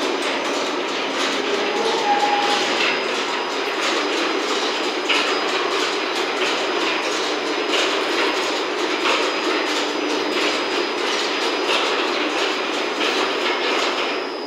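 Skyrail suspended rope-driven car rolling into the station, a steady running noise with light, irregular clicking.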